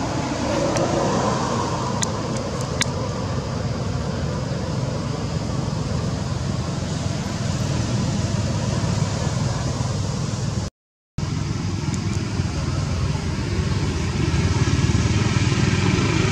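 Steady low rumble of an engine running, with a constant low hum, which cuts out for a moment about eleven seconds in.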